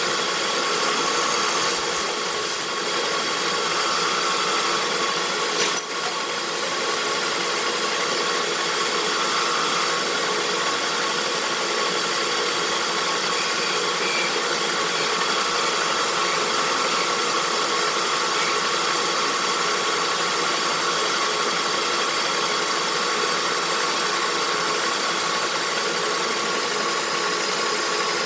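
Machine tool running steadily while machining a metal part, with one sharp click about six seconds in.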